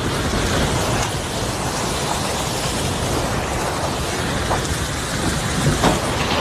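Loud, steady rushing of storm wind and rain, with a few faint knocks.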